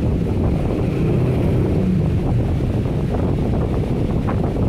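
Steady low rumbling noise on the microphone, with a few faint taps from the cardboard phone box being handled near the end.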